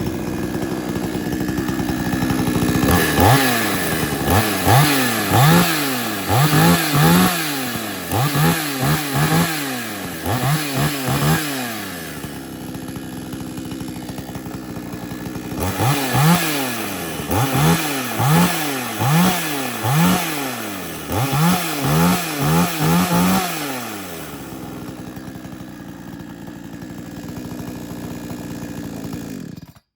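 Old 59 cc two-stroke chainsaw, warmed up and off choke after a cold start, idling and then blipped to high revs about a dozen times in quick succession, each rev rising and falling back. It settles to idle, gets a second run of quick throttle blips, idles again, and cuts off suddenly at the very end as it is switched off.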